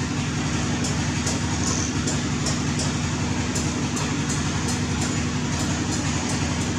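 Steady low mechanical hum, with faint high clicks about twice a second.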